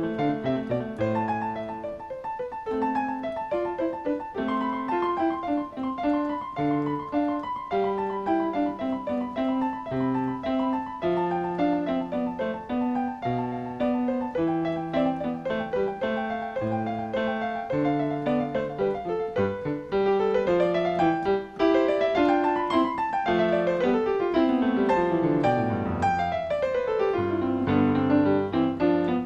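Solo piano playing a postlude at the close of a church service: held chords and melody, growing louder about two-thirds of the way through, with runs of notes sweeping up and down near the end.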